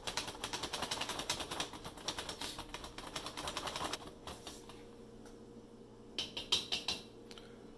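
Green silicone whisk beating a beer marinade in a plastic bowl: a fast, even run of light clicks and sloshing that stops about four seconds in. A few louder clicks follow a couple of seconds later.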